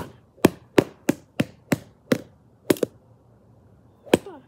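Bare fists punching a padded freestanding punching bag: a fast run of sharp smacks, about three a second, then a pause and one more hit near the end.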